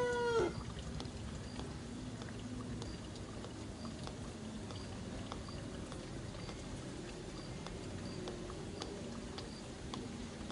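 A baby macaque's high, drawn-out cry cuts off about half a second in. After it come only faint scattered clicks and rustling.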